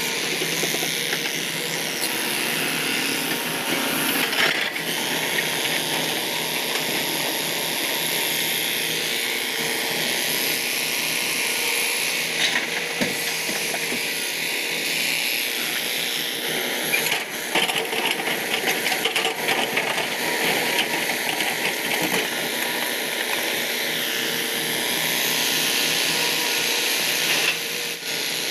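Hyundai Robex 215L crawler excavator's diesel engine and hydraulics working steadily as it swings and digs. There are scattered knocks, and a stretch of rattling about two-thirds of the way through, which is likely rock and soil against the bucket.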